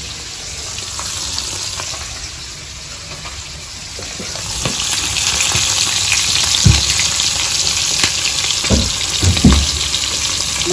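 Oil sizzling as whole sarputi (olive barb) fish and green chillies fry in a wok. The sizzle grows louder about four seconds in, with a few dull thumps near the end.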